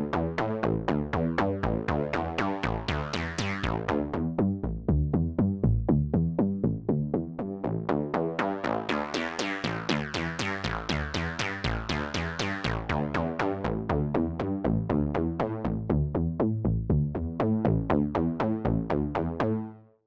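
AIR Vacuum Pro virtual analog synthesizer playing a fast sequenced pattern of short notes. The filter opens and the tone brightens twice, briefly about three seconds in and longer in the middle. The pattern fades out right at the end.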